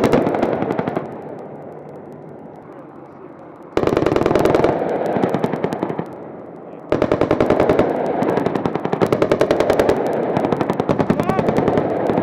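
Automatic gunfire in rapid bursts: a short burst at the start, another about four seconds in, and a long sustained burst from about seven seconds in, with a steady rumbling noise between bursts.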